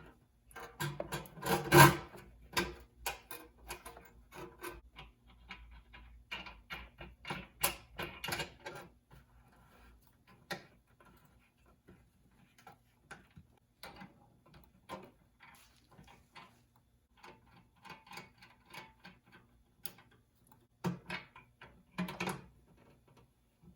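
Small hardware and hand tools being handled and fastened: irregular clicks, taps and knocks with short pauses between, the loudest about two seconds in.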